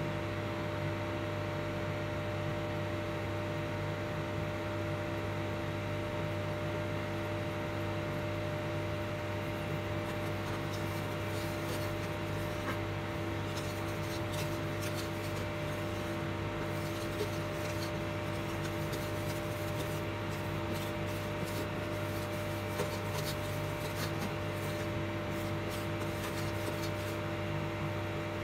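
Wooden spoon rubbing and scraping around a stainless steel pot of melting brown sugar syrup, over the steady hum of an induction cooktop. Light crackles become more frequent in the second half as the syrup starts to bubble.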